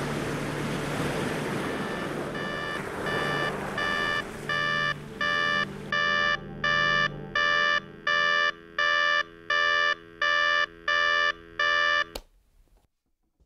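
Electronic alarm clock beeping in an even pulse, about one and a half beeps a second, growing louder, then cut off abruptly near the end as it is switched off. Over the first half a steady rushing noise fades away beneath it.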